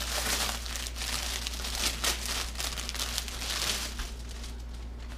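A clear plastic bag crinkling as a shirt is pulled out of it, in repeated bursts that die down after about four seconds. A low steady hum runs underneath.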